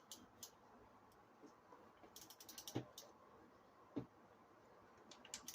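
Faint clicking of a hand ratchet tightening bracket bolts, in two quick runs of clicks, about two seconds in and near the end, with two single light knocks of the tool between them.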